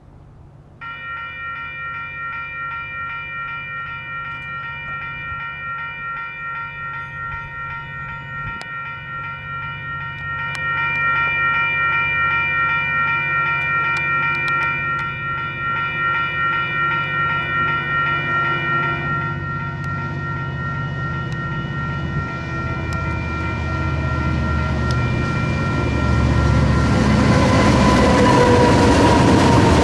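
A railroad grade-crossing warning bell starts ringing about a second in, a steady pulsing ding. A train then approaches, its rumble building, and it is passing through the crossing near the end with loud rolling wheel noise.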